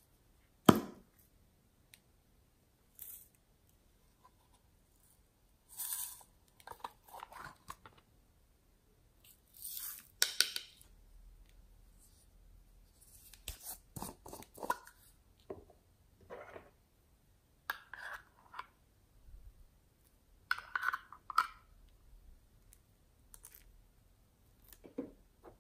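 Small plastic toy capsules and figures being opened and handled: scattered clicks, taps and rustles, with one sharp knock about a second in as the loudest sound. Near the end a spoon works in thick slime.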